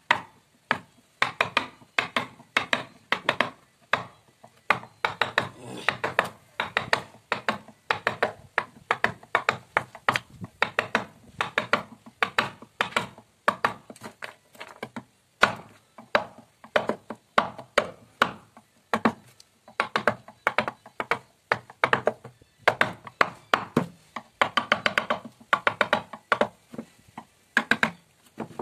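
Wooden mallet striking a carving chisel into a wooden panel: quick repeated wooden knocks, several a second, in runs with short pauses, each with a short hollow ring.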